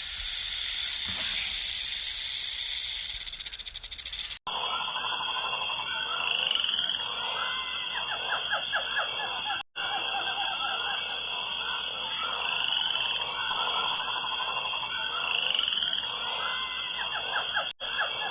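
Loud, steady hiss for about four seconds, then an abrupt cut to a chorus of rapid, repeating animal calls over a steady high-pitched drone, with two brief dropouts near the middle and the end.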